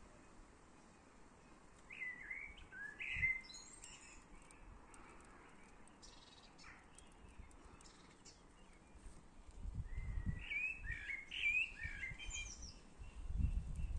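Garden songbirds singing in quick warbled phrases, one burst about two seconds in and another from about ten seconds, over faint outdoor background. A low rumble joins near the end.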